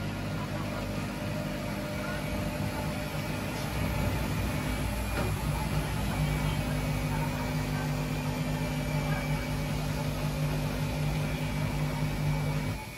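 An LG 5 kg front-loading washing machine runs its drum motor with a steady hum. The hum grows louder about four seconds in and cuts off abruptly near the end as the drum stops turning.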